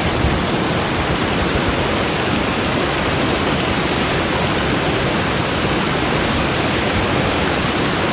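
Grey Mare's Waterfall pouring: a loud, steady rush of falling water with no break.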